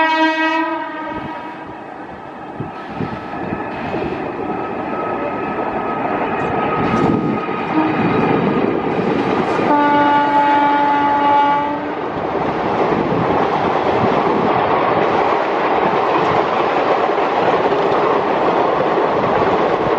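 Indian Railways electric locomotive air horns sounding twice: a short blast at the start, then a longer blast of about two seconds at a different pitch about ten seconds in. Between and after them a passing train rolls steadily over the rails with wheel clatter, loudest and steady through the second half.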